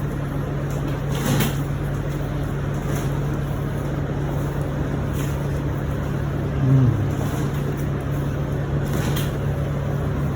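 Steady low machine hum, with a few brief faint clicks and a short louder low sound about seven seconds in.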